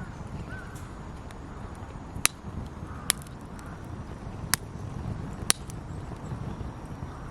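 Wood fire crackling: four sharp pops about a second apart, with fainter crackles between them over a low steady rumble.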